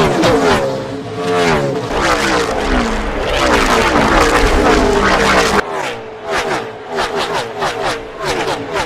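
NASCAR Gen 6 stock cars' V8 engines at racing speed, several engine notes sliding in pitch as the cars go by. About halfway through, the sound cuts abruptly to a different shot with a choppier, rapidly pulsing engine note.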